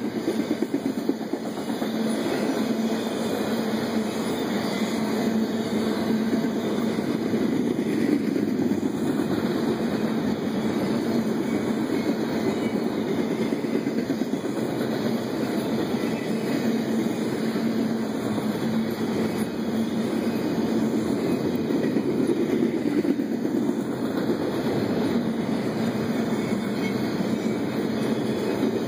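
CSX intermodal freight train's well cars, loaded with trailers and containers, rolling steadily past: the continuous run of steel wheels on rail.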